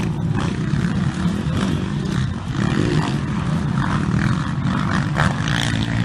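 Several motocross dirt bikes racing, their engines revving up and down as riders accelerate and ease off through the turns and jumps, with a revving glide in pitch about halfway through.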